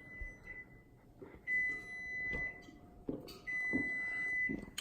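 A kitchen appliance's electronic beeper sounding a high steady tone, each about a second long, repeating roughly every two seconds. A few soft knocks of things being handled come in between.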